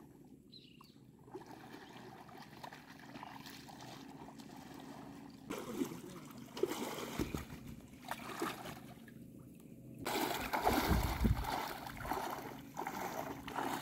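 Water splashing and sloshing as a person wades through shallow river water, towing a small wooden boat by a rope. The splashing grows louder in the second half.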